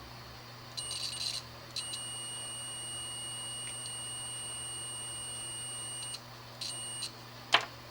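Multimeter continuity beeper sounding as the probes touch the black wire: a short beep, a long steady beep of about four seconds, then another short beep, confirming the connection. A single click near the end.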